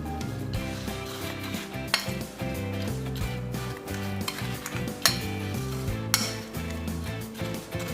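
Kitchen utensil stirring and scraping in a bowl, with three sharp clinks, over background music with a steady bassline.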